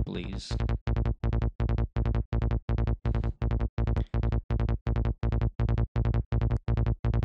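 KickNBassGel software synth playing a psytrance bass line in A# at 165 BPM on its own, without a kick: short, identical low notes repeating evenly at about five or six a second.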